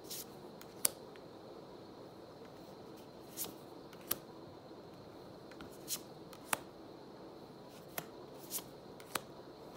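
Pokémon trading cards being slid off a hand-held stack one at a time, their edges giving short, sharp snaps and clicks at irregular gaps of roughly a second.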